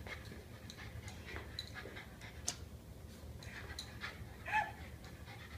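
Japanese Spitz panting excitedly while it spins, with scattered light ticking sounds and one short high-pitched sound about four and a half seconds in.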